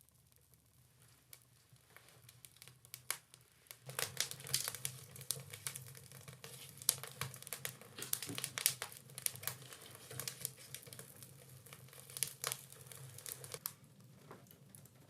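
Crinkling and tearing of wrapping being handled. It starts about four seconds in as a dense run of sharp crackles and eases off near the end.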